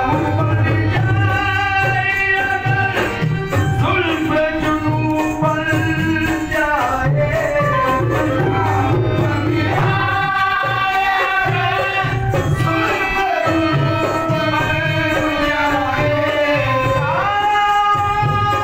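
A singer performing an Urdu ghazal in long held notes that glide between pitches, over an uneven hand-drum beat.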